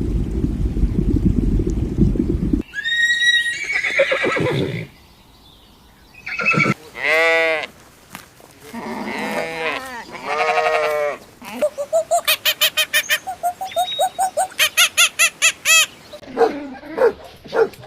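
A low rumbling noise for the first couple of seconds, then a string of different farm-animal calls: drawn-out calls that rise and fall in pitch, then a fast run of pulsed calls, about four or five a second, for several seconds.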